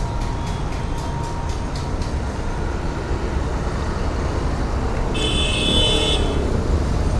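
A vehicle horn sounds once, held for about a second, about five seconds in, over a steady low rumble of road traffic. A few light clicks come in the first two seconds as the plastic phone-holder mount is handled.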